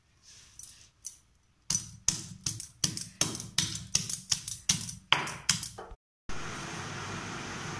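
Stone pestle pounding chillies, garlic and ginger in a stone mortar into paste: a run of sharp knocks, about three a second, starting about two seconds in. The knocking cuts off near six seconds and a steady hiss follows.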